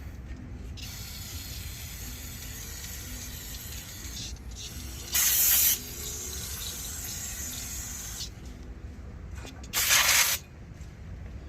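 Aerosol spray can hissing: a fainter spray for several seconds, then two short, loud bursts about four and a half seconds apart.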